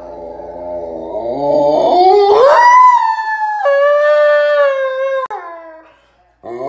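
Husky howling: a low grumbling note glides up over about two seconds into a long, loud howl, drops to a lower held note about three and a half seconds in, and trails off near the end. A second rising howl starts right at the end.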